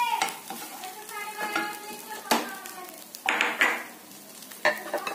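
A silicone spatula scraping and tapping in a non-stick frying pan as softened khoya is scraped out, with several sharp knocks of the spatula against the pan and plate.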